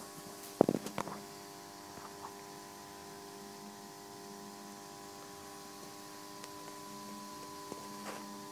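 Steady electrical hum made of several fixed tones. A single sharp knock about half a second in is the loudest sound, followed by a few faint clicks.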